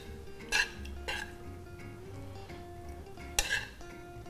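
A metal spoon scraping and clinking against a frying pan as sautéed mushrooms are spooned out, three short strokes, the first about half a second in and the last near the end, over steady background music.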